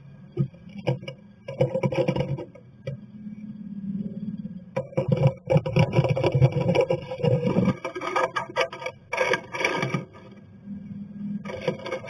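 Tree swallow moving about inside a cedar nest box, its feet and wings scraping and rustling the dry grass nesting material against the wooden floor and walls. The scratching comes in irregular bursts with small clicks and is busiest from about five to ten seconds in.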